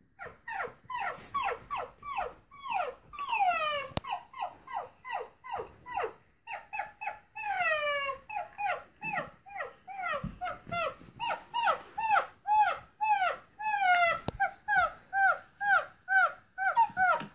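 Small dog's high-pitched yips and yelps played through laptop speakers: a long run of short calls, each falling in pitch, a few drawn out longer, coming faster and more evenly near the end.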